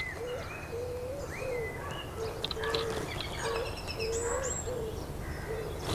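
Birds singing: higher whistled, gliding phrases from songbirds, and a short low note repeated many times throughout.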